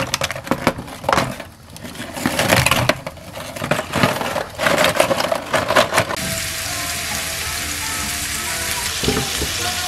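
Rolled pork belly slices in a hot frying pan: irregular crackling and clatter at first, then, about six seconds in, an even steady sizzle of frying fat. Light background music runs underneath.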